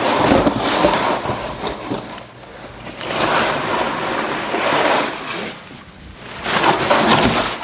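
Artificial Christmas tree's plastic branches rustling and scraping as they are pressed and scrunched down into a cardboard box, in three long swells of rustling.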